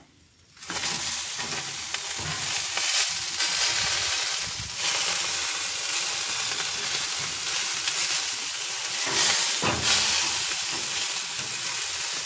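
Brisket sizzling steadily on the racks of an upright vertical smoker, an even hiss that starts abruptly about a second in.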